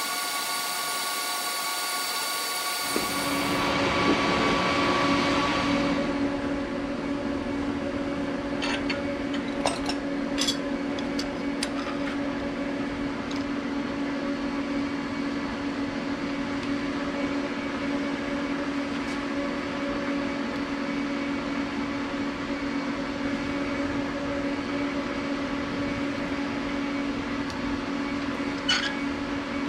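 Induction forge whining with several steady high tones as it heats a steel railroad spike. About three seconds in this gives way abruptly to a steady low machine hum that runs on, with a few faint clicks of metal.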